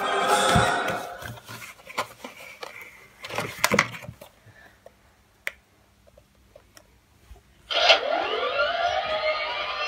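Background music fades in the first second, then a cardboard box is handled and opened with soft clicks and rustles. Near the end the Propel Star Wars TIE fighter drone's handheld controller switches on and plays its built-in sound effect from its speaker: a sudden loud burst of sweeping glides that runs into music.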